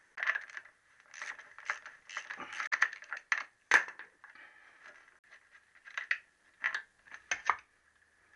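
Metal hand tools clinking and rattling against motorcycle fittings in irregular bursts, as a spanner works fasteners loose on the rear brake linkage.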